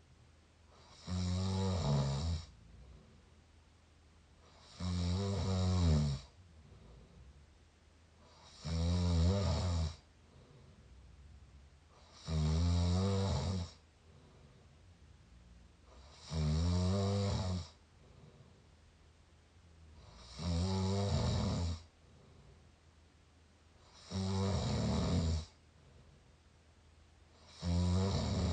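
A person snoring through an open mouth, close to the microphone: a snore about every four seconds, each lasting about a second, with quiet breathing between.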